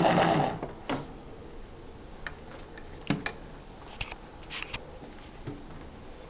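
Singer Model 201 sewing machine with its direct-drive motor running and then stopping about half a second in, followed by scattered light mechanical clicks and knocks.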